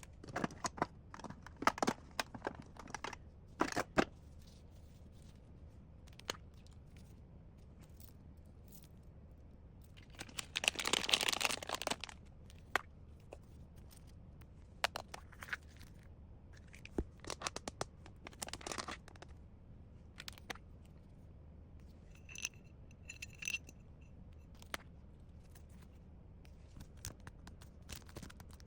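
Unboxing handling noise: scattered rustles, clicks and light knocks of packaging and items being moved. A louder rustling stretch lasts about a second and a half, ten seconds in, and there are a few short high-pitched blips a little past twenty seconds.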